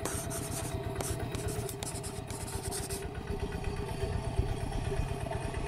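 Single-cylinder engine of a two-wheel walking tractor running steadily with a fast, even low pulse while it pulls a wooden cart.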